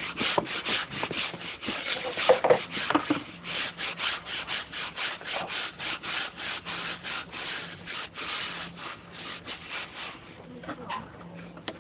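Rhythmic scraping strokes, about three a second, with a few louder knocks about two to three seconds in, dying away near the end.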